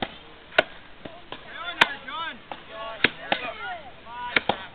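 Axe chopping into a log in an underhand chop, with the chopper standing on the log: about six sharp wooden strikes at an uneven pace, roughly one a second, with two close together near the end.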